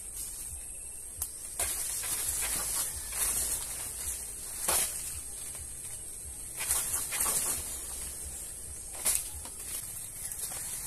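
Banana leaves rustling in several short swishes as a long bamboo pole is worked up among them to reach a banana bunch, over a steady high-pitched hiss.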